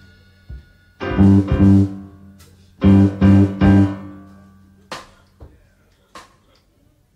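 Live band playing a break without vocals: two groups of short, loud chord stabs with bass, a couple of seconds apart. A few sharp percussive hits follow, then a brief lull.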